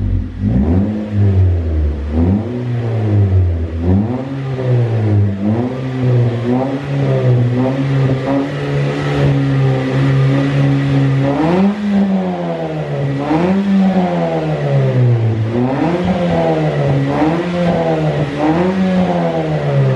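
Toyota Yaris four-cylinder engine revved through an aftermarket Pro-Drift muffler with a Drag S resonator and the stock header, giving a deep, bassy exhaust note. The revs rise and fall in a string of throttle blips, are held steady and raised for several seconds in the middle, then blipped again.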